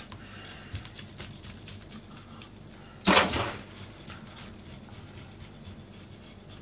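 Kitchen knife scraping the scales off a raw herring on a plastic cutting board: a run of quick rasping strokes and small clicks, with one much louder scrape about three seconds in.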